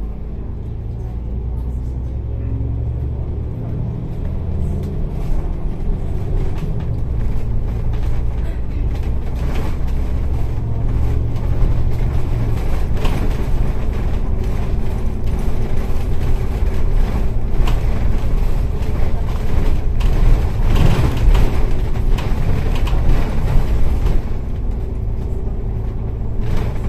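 City bus running on the road, heard from inside the cabin: a low engine drone with road rumble and rattles. It grows louder after the first few seconds.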